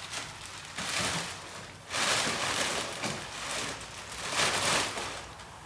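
Packaging crinkling and rustling in three bursts, the loudest lasting about a second, as a new front grille is unwrapped.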